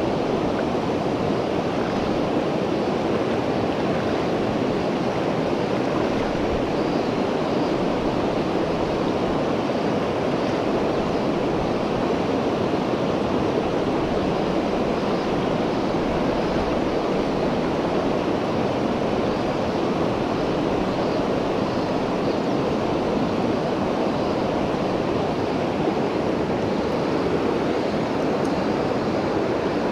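Clear, shallow river flowing over a cobble riffle: a steady rush of water.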